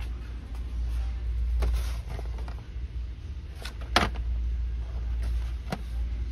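Steady low rumble with a few sharp clicks and knocks. The loudest, about four seconds in, comes as a hand moves a carded plastic toy package on a metal store shelf.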